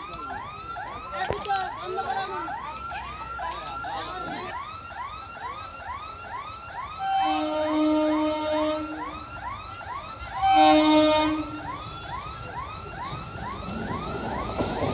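Horn of an EMU local train sounding two steady blasts, the second shorter and louder, over a rising electronic warble that repeats about three times a second. The train's running noise builds up near the end as it comes up to the crossing.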